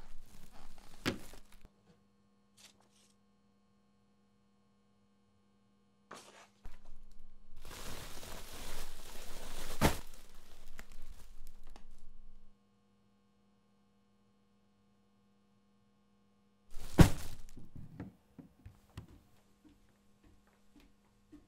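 Tissue paper and a paper gift bag rustling for several seconds as a boxed Ouija board is pulled out, then one loud thunk as the box is set down on the countertop, followed by a few light taps.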